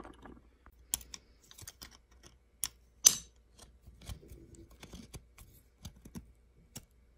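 Scattered small metallic clicks and taps as a screw is threaded by hand, then turned with an Allen key, through an aluminium sight rail into a brass vertical ASA adapter. The clicks come at irregular intervals, the loudest about three seconds in.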